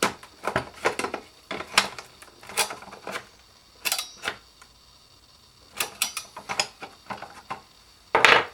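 Small hard objects being handled on a workbench: a run of irregular clicks and clacks, with a louder clatter near the end.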